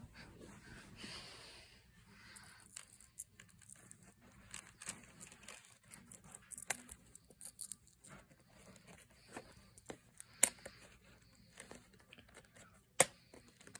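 Faint rustling and handling noise with scattered sharp clicks and taps, as a phone is moved about close over a plastic hockey mask; two louder clicks stand out near the end.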